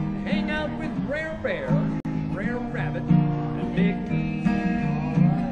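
An acoustic guitar played live, strummed and picked through a run of held chords.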